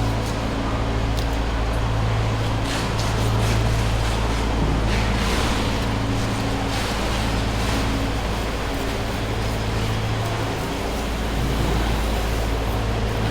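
Steady low machine hum over a constant background noise, with a few faint clicks.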